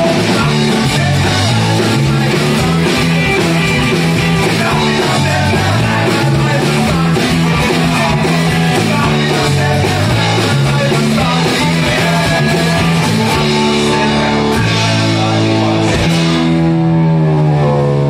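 Live rock band playing loud: electric bass, hollow-body electric guitar and amplified acoustic guitar with a lead singer. The song closes on a long held, ringing chord in the last couple of seconds.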